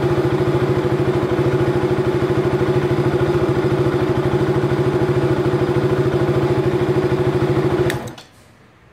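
KTM Duke 200's single-cylinder engine idling steadily with an even, rapid pulse, then switched off about eight seconds in: it cuts out abruptly with a click.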